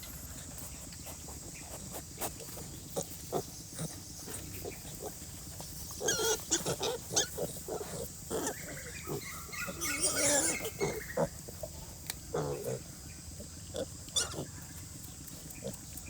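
Piglets squealing and pigs grunting: short squeals about six seconds in, then a longer squeal before a grunt, over a steady hiss of rain with scattered drops.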